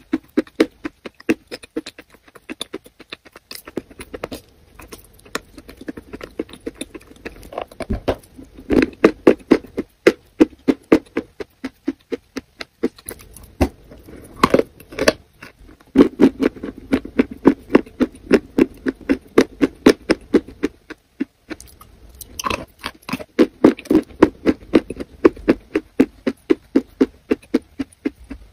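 Close-miked chewing and biting of a soft food coated in a wet paste: steady, rapid, wet mouth sounds. There are a few sharper bites around the middle and again later on.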